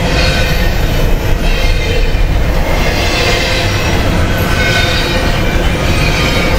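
Double-stack intermodal well cars rolling past close by: a loud, steady rumble of steel wheels on rail, with a high-pitched wheel squeal that swells and fades.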